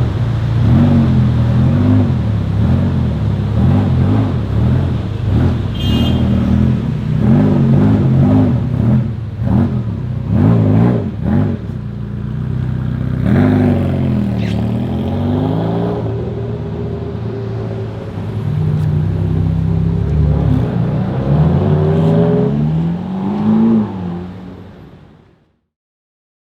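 Ferrari supercar engine revved again and again, its note rising and falling about once a second, with sharp exhaust pops among the blips. Longer revs follow, then the sound fades out near the end.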